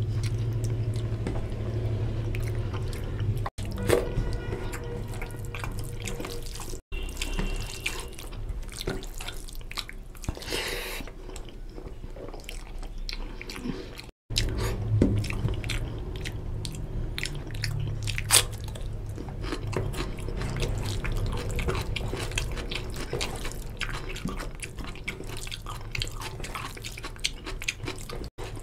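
Wet, squelching sounds of rice being mixed by hand into oily mutton curry gravy on a steel plate, with close-up chewing and lip-smacking clicks over a low hum. The sound breaks off abruptly a few times.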